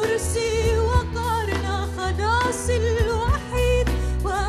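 Christian hymn music: a melody line with vibrato over a steady bass and a regular beat.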